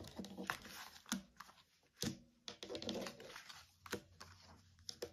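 Tarot cards being handled and laid out on a table: a few light, irregular clicks and soft rustles of card stock.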